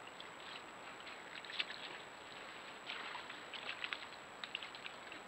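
Soft, irregular rustling and crackling of leaf litter and twigs under a foraging mammal as it walks and noses along the forest floor, in small clusters of crackles over a steady microphone hiss.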